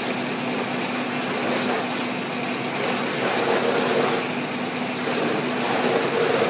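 Fire trucks' engines running steadily, a constant low hum under a noisy wash that swells slightly a couple of times.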